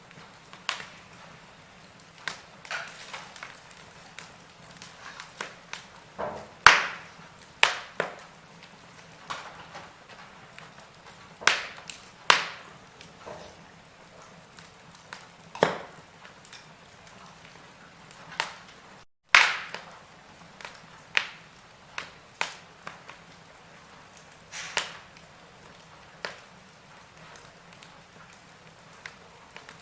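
Wood fire in a fireplace crackling: irregular sharp snaps and pops over a soft hiss, several of them loud. About two-thirds through, the sound cuts out for a moment and a loud pop follows.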